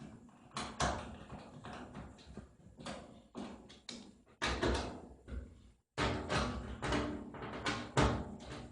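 Irregular knocks and metallic clatter from the washing machine's sheet-metal back panel being handled and fitted into place.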